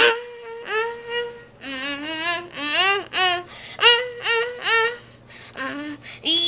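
A child's voice singing a wordless, warbling tune: a held note, then a string of short notes that slide up and down.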